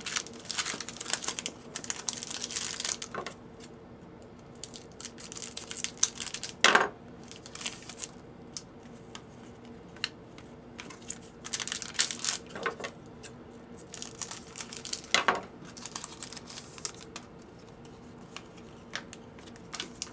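Foil trading-card pack wrappers crinkling and tearing and cards being handled, in scattered bursts, with a sharper snap about a third of the way through. A faint steady hum runs underneath.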